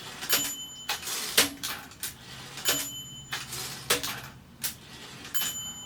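Consul 224 portable typewriter being worked by its carriage return lever: repeated mechanical clicks and clunks as the carriage is thrown and the line-space ratchet advances, with a short ringing ding three times, roughly every two and a half seconds.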